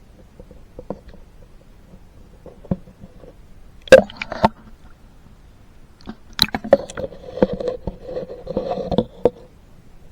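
Muffled water sounds picked up by a camera submerged in the water: scattered faint clicks, a sharp knock about four seconds in, then about three seconds of jumbled knocking and sloshing.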